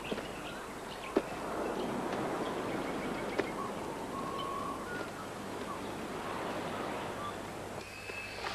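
Tropical forest ambience: a steady rustling hiss with two sharp snaps and a few short whistled bird calls.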